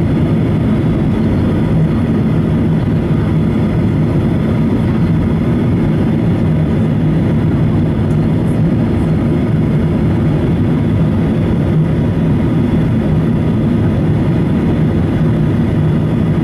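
Steady cabin noise inside a Boeing 737-800 on approach: the drone of its CFM56-7B jet engines and the rush of air over the fuselage, deep and even, with a steady low hum.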